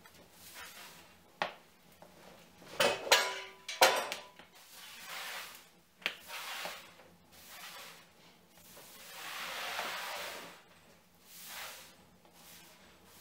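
Straw broom sweeping old wooden floorboards, with soft repeated swishes. A few sharp, clinking knocks about three to four seconds in are the loudest sounds.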